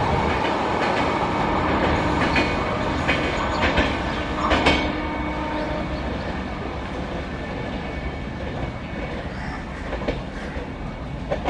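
Express train of LHB coaches running through at speed: a steady rumble of wheels on rail, with several sharp clacks over rail joints in the first half, easing off towards the end.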